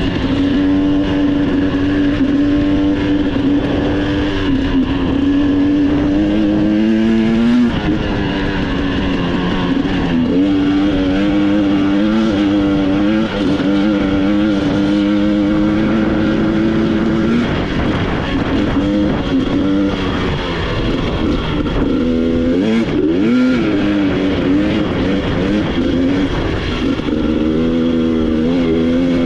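Off-road vehicle engine running hard, its pitch climbing and dropping with the throttle several times, over a steady noisy rumble.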